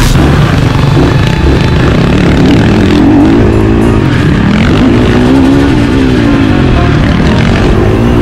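Motocross bike engine revving up and dropping off again and again as it is ridden hard over the track.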